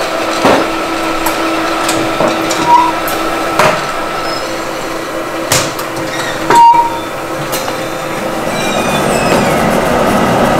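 Pottery-factory machinery and a pot conveyor running with a steady hum. Irregular sharp clanks and knocks cut through it, and two brief high squeaks.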